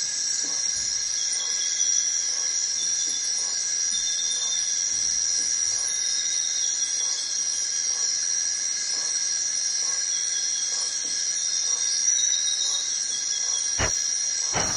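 Dense chorus of tropical forest insects, a steady high-pitched buzz made of several held tones. Near the end there are two sharp clicks.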